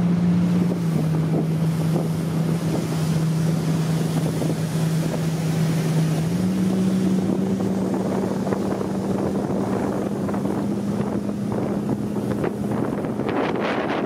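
Rigid hull inflatable boat's engine running steadily, its pitch dipping slightly about a second in and rising again about six seconds in, with wind on the microphone and water rushing past the hull; sharp wind buffets crackle near the end.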